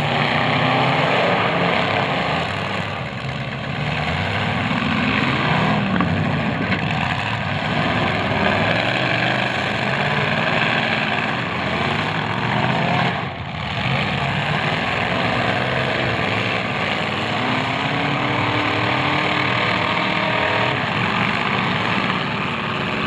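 Several demolition derby cars' engines running together, revving up and down and overlapping without a break.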